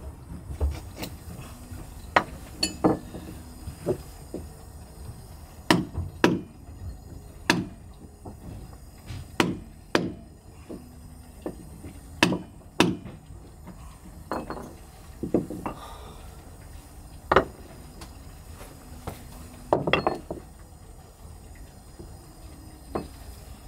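Irregular hammer blows on a tool in a wooden deck seam, about twenty strikes roughly a second apart with pauses, some ringing briefly: old pitch being taken up so the seam can be repitched.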